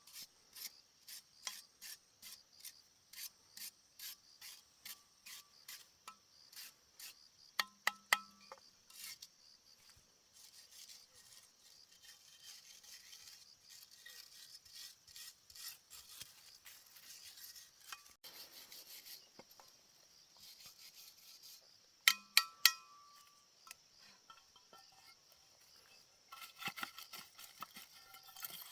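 Hand-tool rasping strokes, about two a second, soft and even; it sounds like filing or scraping during a repair. Later the scraping runs on softer and more steadily, then turns quicker near the end. Sharp metallic clinks near 8 seconds and again near 22 seconds are the loudest sounds.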